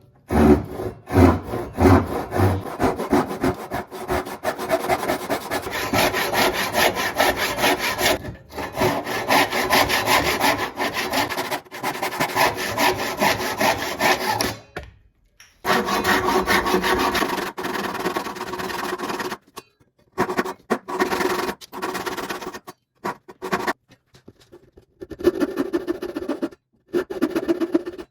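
A hand tool, a file or a saw, worked back and forth in quick, even strokes. The strokes stop and start abruptly several times.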